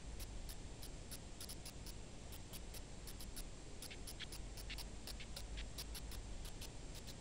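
Light, irregular ticks and taps of fingers placing and sliding small pieces of paper on a hard board, about four a second, over a low steady hum.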